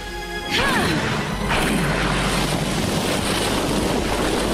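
Cartoon sound effect of a fiery lava blast melting through rock: a sudden loud rushing crash about half a second in that runs on steadily, over background music.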